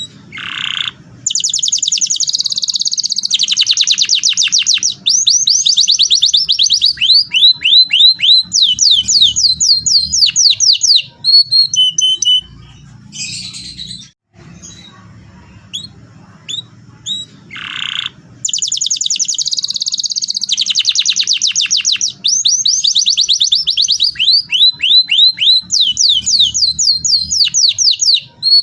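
Domestic canary singing long rolling songs of rapid high trills and quickly repeated notes, in two bouts of about ten seconds each with a short pause between them.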